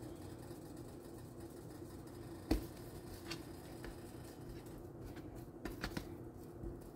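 Quiet handling of a spice shaker and biscuit dough in a metal baking pan: a sharp click about two and a half seconds in, then a few soft taps near the end, over a steady low hum.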